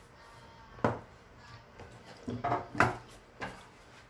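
Handling noises as gear is pulled from the back pocket of a running vest: a few sharp knocks and clatters, one about a second in and a quick run of them between two and a half and three seconds.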